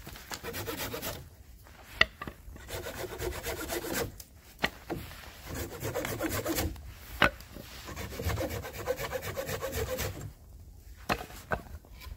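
Small hand saw cutting a dry branch in several bursts of back-and-forth rasping strokes. A few sharp snaps of wood sound between the bursts.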